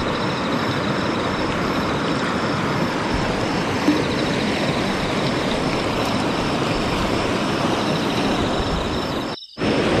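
Steady rush of the upper Tama River's flowing water, which breaks off for a moment near the end.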